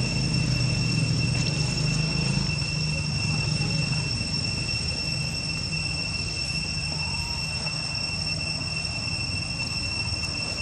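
Steady, high-pitched drone of insects calling in the undergrowth, with a low rumble underneath that eases off about four seconds in.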